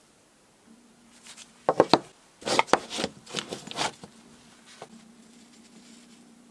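Cylindrical 18650 lithium-ion cells being handled and set down on a hard bench: three quick sharp clicks about two seconds in, then a second or so of knocking and clatter as they are laid out in a row.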